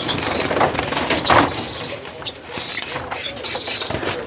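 Small caged finches (siskins and redpolls) fluttering and scrabbling in the cage as they are caught by hand, with two short, high, buzzy chirps: one about a second and a half in, one near the end.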